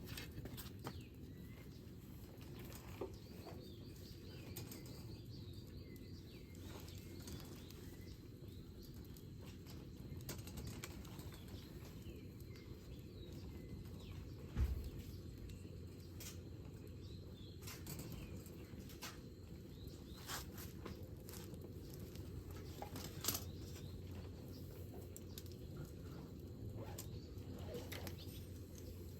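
Wood fire crackling, with small pops at irregular intervals over a low steady rumble, and one dull thump about fifteen seconds in.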